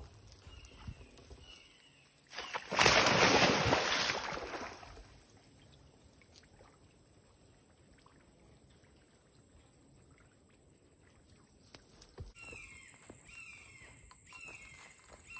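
Water splashing and sloshing in a swamp pool for about two seconds, the loudest sound. Near the end a bird calls over and over in short falling notes, about one and a half a second.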